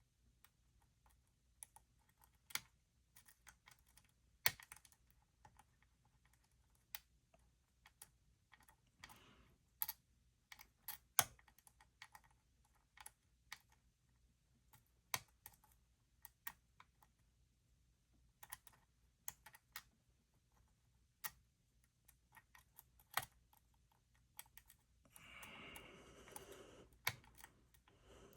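Lock pick and tension wrench working the pin stack of a Yale YE3B five-pin padlock: faint, irregular clicks and ticks as the pins are raked and set, with a short stretch of scraping rustle near the end.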